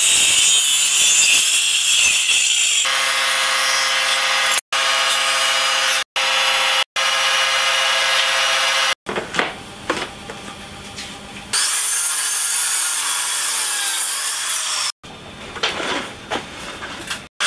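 Handheld electric circular saw cutting a wooden board, followed by further power-saw cuts in short edited sections, one of them with a steady motor whine. Quieter stretches of scraping and tapping fall between the cuts, and the sound breaks off abruptly several times.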